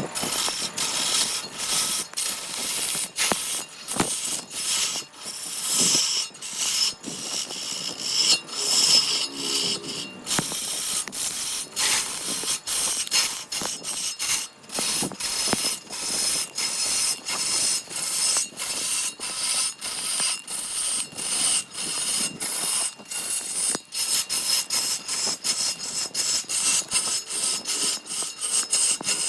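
Repeated rasping strokes of a hand tool working wood, about two a second with short breaks between them.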